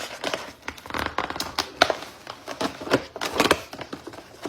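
Plastic packaging crinkling in quick, irregular crackles as a small toy is unwrapped.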